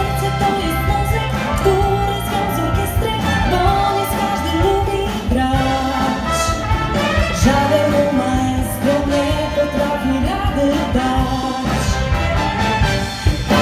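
A woman singing lead with a live rock band: drum kit, electric guitars, keyboards and a horn section of trumpet and trombone.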